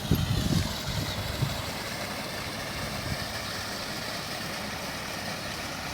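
Case 580N backhoe's diesel engine running at idle, steady after some uneven low rumbles in the first second and a half.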